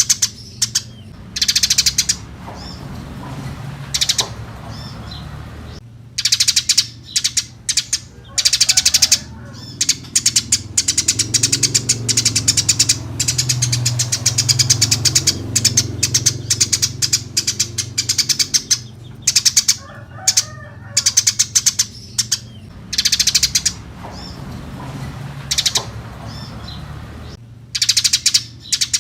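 Eurasian tree sparrow chirping in quick, chattering strings of sharp calls, repeated every second or two, with a faint low hum underneath.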